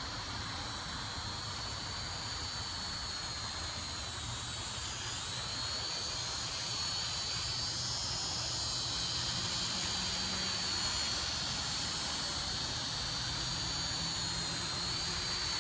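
Syma X5SW-1 toy quadcopter flying, its four small electric motors and propellers giving a steady high-pitched whine over a hiss. The pitch wavers with throttle changes, dips briefly about five seconds in, and the whine grows a little louder about halfway through.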